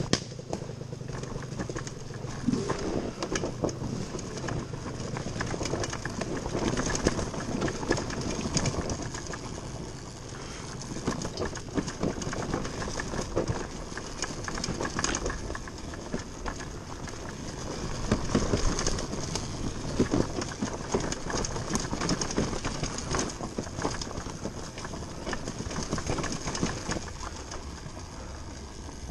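TM Racing MX250 dirt bike coasting downhill with its engine off: tyres crunching over dirt and rocks, with the bike rattling and frequent knocks over bumps.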